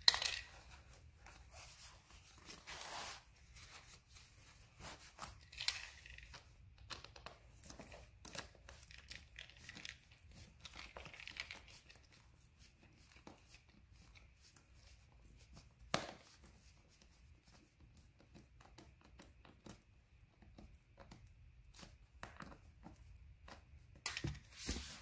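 Satin fabric being handled and stretched over a padded frame: faint rustling and crinkling, with scattered small clicks as screws with washers are worked through it by hand. There is a sharp click right at the start and another about sixteen seconds in.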